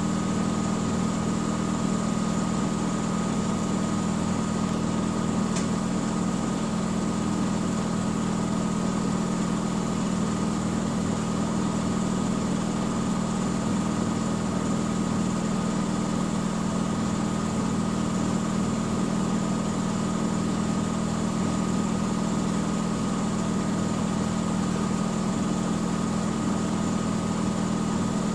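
Miele W 5963 washing machine spinning steadily at high speed, a constant machine hum with a steady high whine above it that does not rise or fall.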